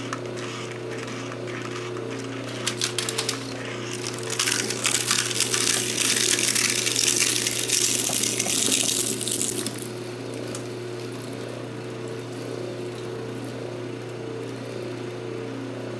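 Electric twin-shaft shredder grinding up a white 3D-printed plastic part. A few cracks come at about three seconds, then a dense crackling grind lasts about six seconds. After that the motor runs empty with a steady hum.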